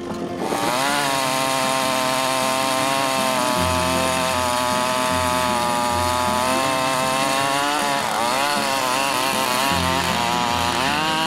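Husqvarna 555 two-stroke chainsaw revving up about half a second in and running at full throttle while cutting through a log. Its pitch sags and wavers as the chain works through the wood.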